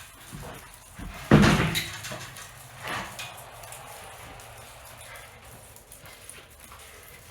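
A loud, heavy thump about a second in that rings briefly, then a smaller knock about three seconds in.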